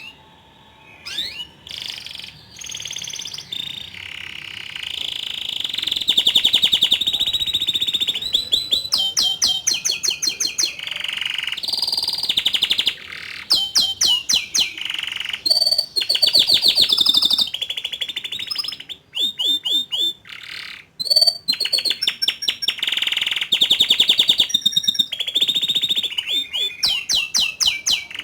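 Young male canary singing a long song of rapid trills and fast repeated chirping notes, broken by short pauses.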